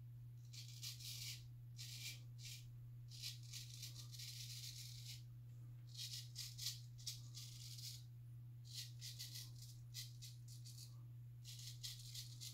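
Razor scraping through stubble in short, crackly strokes, about nine of them at an uneven pace, over a steady low hum.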